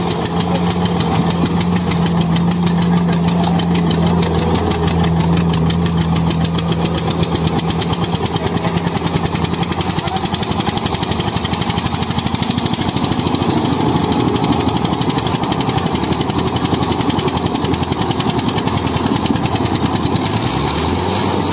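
Diesel engines of a Mahindra Arjun and an Eicher tractor running hard under load as the two tractors pull against each other in a tug-of-war. There is a dense, rapid, even pulse throughout, and the pitch rises near the end.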